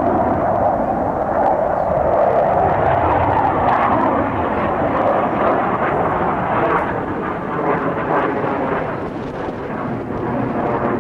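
Blue Angels F/A-18 Hornet's twin F404 turbofan engines at high power as the jet climbs vertically: a loud, steady jet noise that eases somewhat after about six seconds.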